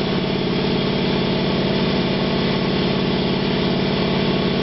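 A motor-driven machine running steadily: a constant hum with a fast, even pulsing.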